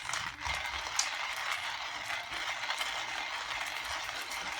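Hunt Brothers hand-cranked ceramic burr coffee grinder being turned steadily, crushing coffee beans with a continuous gritty rattle and a few sharper clicks.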